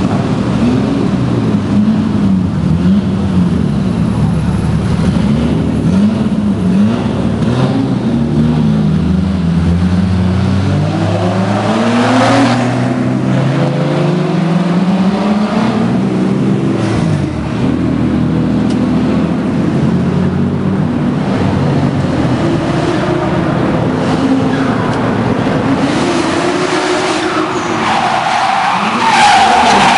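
Drift cars' engines revving up and down over and over, more than one at a time, with tyres squealing as they slide. The loudest tyre screech comes near the end.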